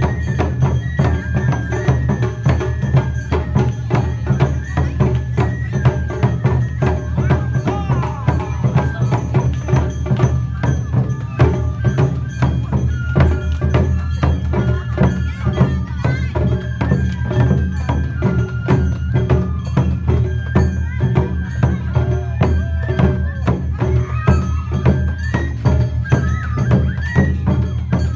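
Awa Odori festival dance music played live: drums and a small hand gong keep up a fast, even beat while a bamboo flute plays the melody over them.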